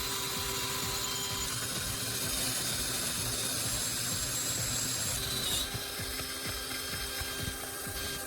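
Electric drill running steadily, its freshly sharpened twist bit cutting into a metal piece.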